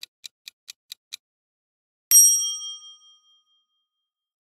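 Countdown timer sound effect: clock ticks at about four a second, six of them, then, after a short gap, a bell-like ding that rings and fades over about a second and a half, marking the end of the countdown and the reveal of the answer.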